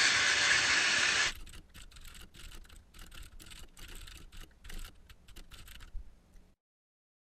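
A power saw cutting through an AR-15 rifle barrel, loud and steady, stopping about a second in. Then quieter computer keyboard typing, a fast run of separate key clicks, for about five seconds until it stops.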